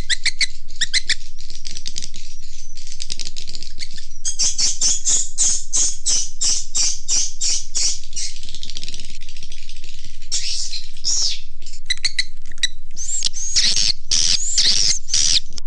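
Recorded edible-nest swiftlet lure call: dense, fast twittering chirps and trills. They fall into a regular run of about three chirps a second in the middle, with longer sweeping calls near the end. It is the sound swiftlet farmers play to draw swiftlets into a nesting house.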